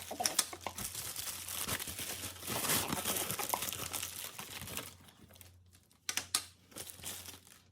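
Mailer bag being crinkled and pulled at by hand in an attempt to tear it open: steady crinkling for about five seconds, then quieter with a few sharp crackles.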